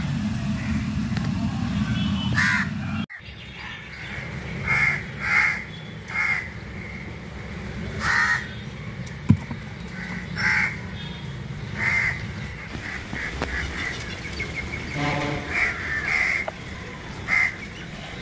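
Steady low hum that cuts off abruptly about three seconds in. It is followed by a dozen or so short, harsh animal calls at irregular intervals.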